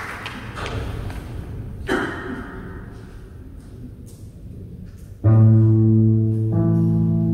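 The last scattered claps of applause fade. A little over five seconds in, a seventeen-string bass koto (jūshichigen) sounds a strong low plucked note that rings on, and a second low note joins about a second later.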